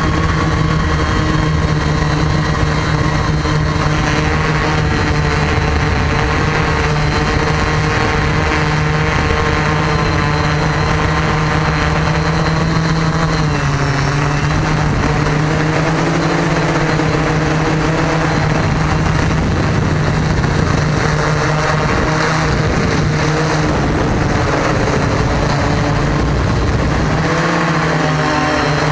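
A multirotor drone's electric motors and propellers humming steadily, heard from the camera mounted on the drone. The pitch dips briefly about halfway through and again near the end as the motors change speed.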